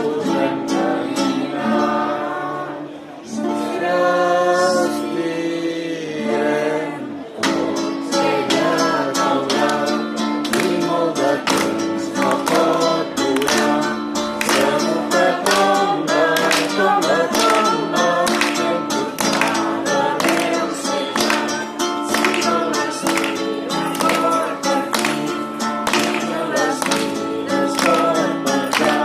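Live song: a singing voice over strummed acoustic strings. About seven seconds in, the accompaniment settles into a steady, even strumming rhythm under the melody.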